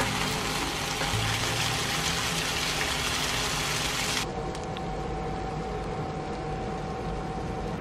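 Fish simmering in a shallow sauce in a frying pan: a steady sizzling hiss that drops away suddenly about four seconds in, leaving a quieter hiss under soft background music.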